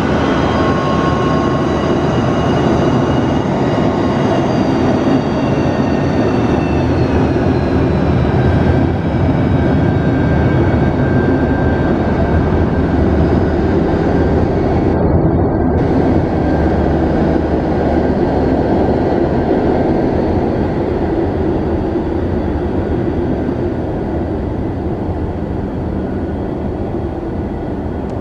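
Boeing 737-200's Pratt & Whitney JT8D turbofan engines running at taxi power: a loud steady rumble with a high whine. The whine slides down in pitch from about four to eleven seconds in as the jet turns its tail toward the listener, and the sound eases slightly near the end as it moves away.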